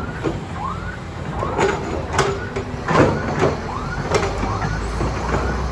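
Heavy diesel engine of a loader or excavator running steadily under load, with repeated short rising-and-falling squeaks and sharp metal clanks from the working machine.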